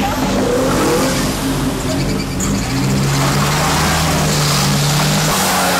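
Mitsubishi pickup's engine revved hard during a burnout, rear tyres spinning on the pavement; the engine note climbs about halfway through and holds high, then eases slightly near the end.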